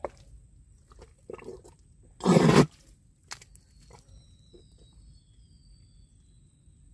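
Wet mud squelching and sucking around an arm worked deep into a crab burrow, in a few short bursts with the loudest about two seconds in and a sharp click just after. Faint high bird chirps follow.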